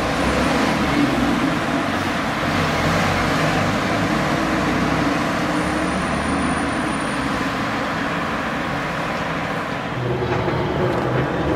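City road traffic: cars and trams running along a wide street, a steady wash of tyre and engine noise, with a lower rumble joining near the end.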